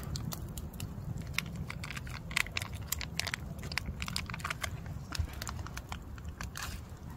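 A small MRE condiment packet crinkling and rustling as it is opened and handled: a scatter of quick dry clicks and crackles over a low steady rumble.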